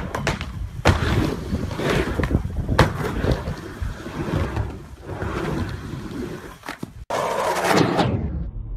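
Skateboard wheels rumbling as the board rolls back and forth on a wooden mini ramp, with several sharp clacks of the board and trucks against the coping and deck. About seven seconds in, the sound cuts to another skateboard rolling on a concrete ramp.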